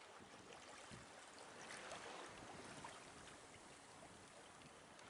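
Faint wash of water along the hull of a sailboat moving slowly in light wind, with a few faint clicks.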